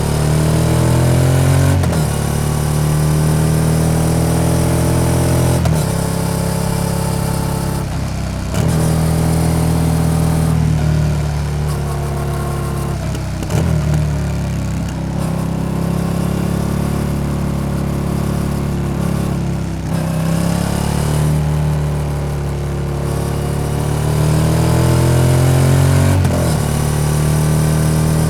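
Yamaha XSR700's 689 cc parallel-twin engine through an SC-Project aftermarket exhaust, ridden on the road. The engine note rises as it accelerates, then drops at each of several gear changes.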